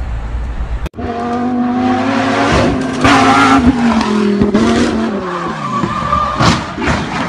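A sports car's engine running at high revs and holding its pitch, then falling in pitch as the car slows for the bend, with several short harsh bursts of tyre skidding.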